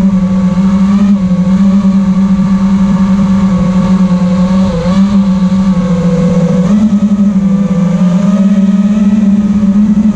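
Brushless motors and propellers of a 5-inch FPV quadcopter buzzing steadily, heard through the onboard camera's microphone, with a brief dip in pitch about five seconds in and a slight rise near seven seconds as the throttle changes.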